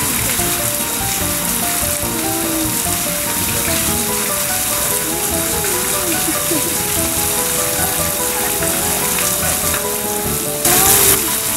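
Steady rushing hiss of water in a polar bear's pool, with a brief louder surge near the end.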